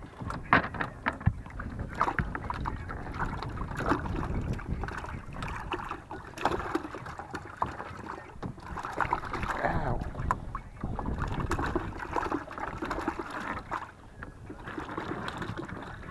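Mullet being handled on a boat deck and dropped into a bucket of water: a run of irregular knocks and taps with uneven splashing.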